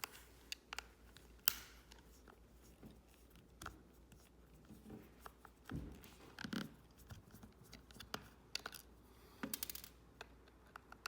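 Small screwdriver working the screws out of a plastic remote-control case: faint, scattered clicks and short scrapes, with a quick run of ticks about nine and a half seconds in.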